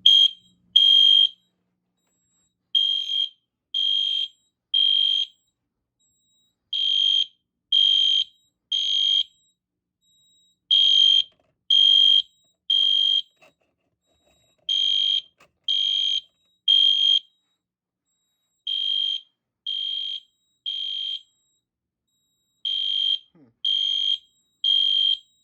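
Fire alarm horn sounding the temporal-three evacuation signal: three high beeps about a second apart, then a short pause, repeating over and over. The system is in alarm after one of its smoke detectors was set off.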